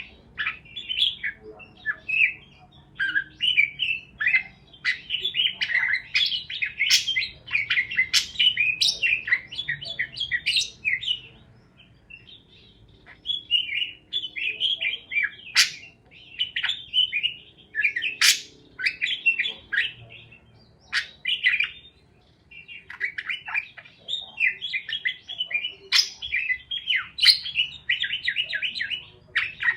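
Parakeets chirping in quick, dense runs of short high chirps and squawks, with brief lulls about twelve and twenty-two seconds in.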